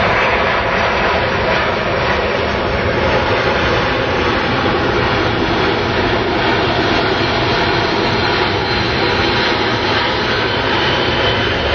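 C-17 Globemaster III's four turbofan engines running steadily as the jet passes low overhead, a loud, even roar.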